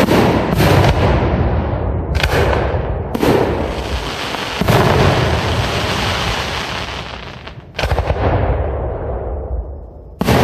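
Aerial firework shells bursting: about six loud booms, each trailing off in a long echo. The gaps between them are irregular, with the longest, about three seconds, before the last boom near the end.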